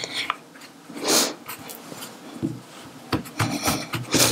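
Bare hands pressing and smoothing a sheet of fresh egg pasta down over a soft cheese filling on a wooden pastry board: a brushing sweep about a second in, then several soft pats near the end.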